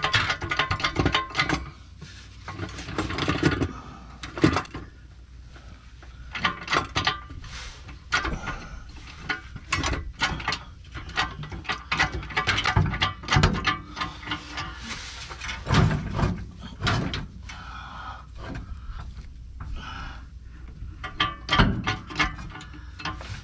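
Irregular knocks, clunks and scrapes of hands-on work: wooden cribbing blocks being shifted and a heavy rebuilt automatic transmission being jostled on its jack as it is lined up with the engine.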